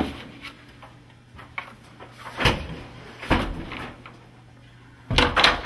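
Handling knocks of a wooden apartment door and a cardboard pizza box: a few separate thumps in the middle and a quick cluster of three near the end, over a low steady hum.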